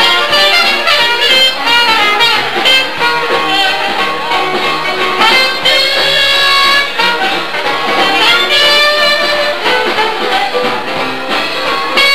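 Live jazz band with a trumpet playing the lead. It plays quick runs of notes at first, then longer held notes from about the middle onward.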